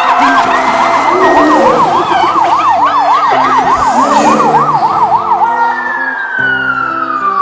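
Emergency siren sound effect in a fast up-and-down wail, about three to four swings a second. Near the end it winds down in one long falling tone.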